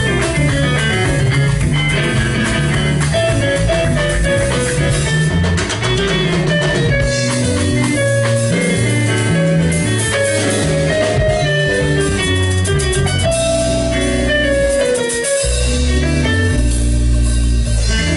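Live jazz band playing, with electric guitar, acoustic guitar, keyboard and drum kit over a strong bass line.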